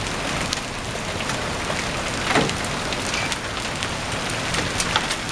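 Small hailstones falling with rain on grass and a concrete sidewalk: a steady hiss dotted with many sharp little ticks of stones striking.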